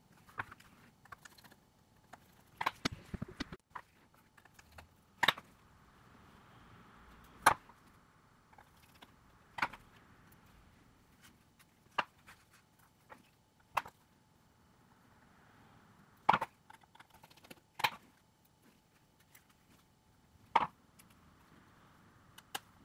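Irregular sharp clicks and light taps of small tools and phone parts being handled during a smartphone teardown, about a dozen of them with a quick cluster a few seconds in.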